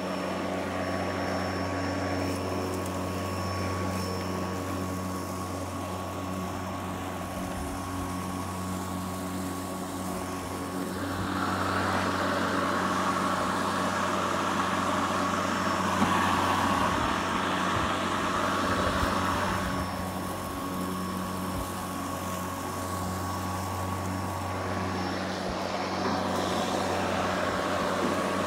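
Snapper SP60V 60-volt brushless cordless push mower running with the blade engaged: a steady electric motor and blade hum with a few level tones, swelling to a louder rushing noise through the middle as it is pushed along.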